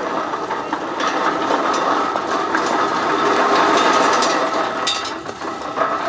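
Olive sorter running: olives and leaves rattle steadily down its metal grate into a sack, with scattered sharp clicks. The sound eases off briefly about five seconds in.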